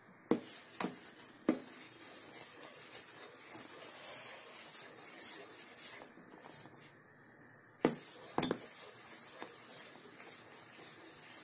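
Metal spoon stirring leaf tea powder into boiling milk in a stainless steel saucepan. The spoon scrapes around the pan, with sharp clinks against the side: a few in the first second or so, and two more about eight seconds in.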